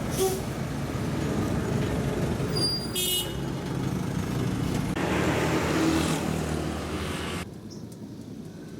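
Road traffic running past, mostly a steady engine rumble, with a short vehicle horn toot about three seconds in. About seven seconds in the sound drops and turns duller.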